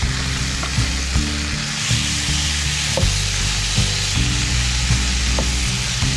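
Food sizzling steadily in a hot pan while it is stirred, with a few sharp clicks of the utensil against the pan.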